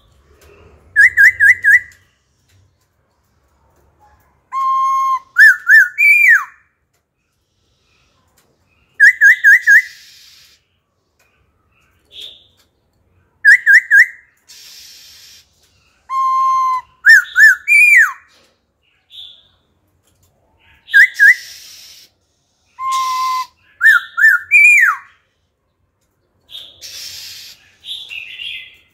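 Caged black-throated laughingthrush singing: loud groups of clear whistled notes, some with a quick rising then falling slide, repeated every few seconds and mixed with a few harsher raspy notes.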